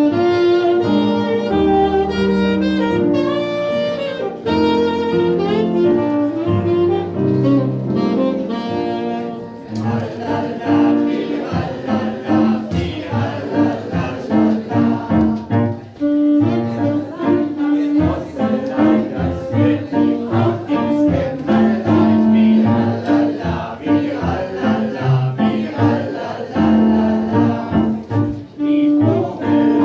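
Instrumental background music: long held melodic notes for about the first ten seconds, then a busier passage of quick, rhythmic notes.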